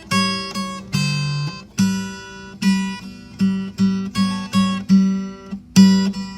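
Acoustic guitar music: plucked chords and notes, each struck sharply and ringing out, about two or three a second.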